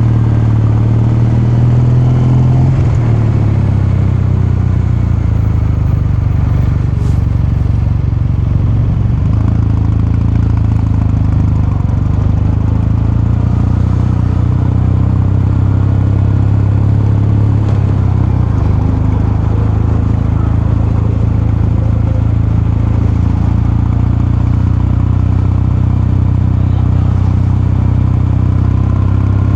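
Kawasaki Meguro K3's air-cooled 773 cc parallel-twin engine running, heard through its exhaust. The note holds fairly steady, shifting slightly in pitch a couple of times, with one faint click about seven seconds in.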